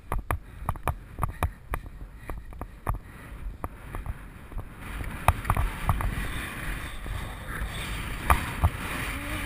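A horse's hooves striking turf at a canter, a steady rhythm of dull thuds. A steady rushing noise joins about five seconds in.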